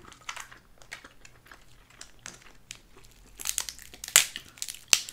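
Dungeness crab shell cracking and crackling as it is broken apart by hand: a run of small clicks, with a few louder snaps in the last second and a half.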